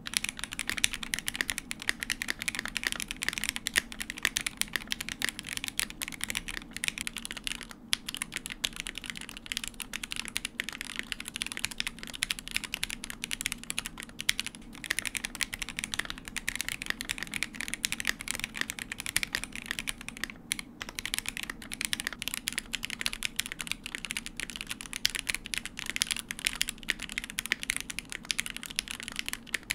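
Continuous fast typing on a mechanical keyboard fitted with unlubed linear switches: a dense run of key clacks, with a few short pauses.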